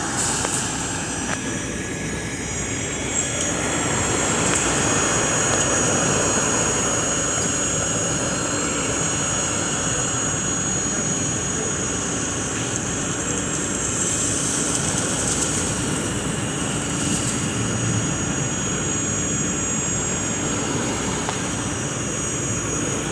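Steady engine noise, a continuous rumble with a thin high whine over it, swelling a few seconds in and then settling.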